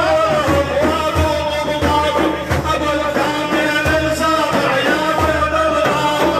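Arabic devotional praise song (madih) for the Prophet: a sung melody that bends and wavers over regular low hand-drum beats.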